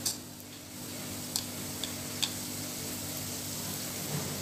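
Chopsticks clicking against a bowl while dipping squash flowers in beaten egg: four short, light clicks in the first two and a half seconds, over a steady low hum.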